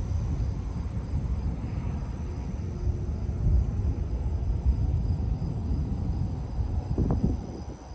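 Thunder rumbling low and continuously, with crickets trilling steadily.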